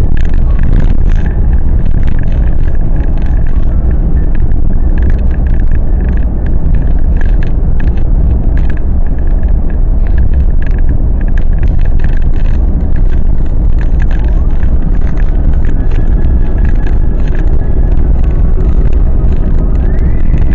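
Driving noise of a vehicle cruising at steady speed: a loud, steady low rumble of engine and tyres on the road, with frequent short ticks and rattles on top.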